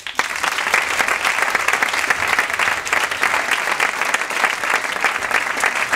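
Audience applause: a room full of people clapping, breaking out all at once and staying dense and steady.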